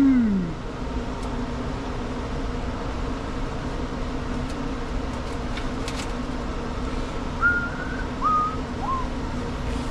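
Steady hum of a workshop fan or air conditioner. At the start a man's voice slides up and back down in pitch, like a hum, and near the end come three short whistled notes, each lower than the last, with a few light clicks of small parts on the metal bench in between.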